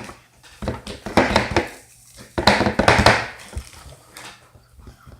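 Two bursts of crackling, crinkling handling noise, made of many quick sharp strokes, about a second in and again around the middle, dying away near the end.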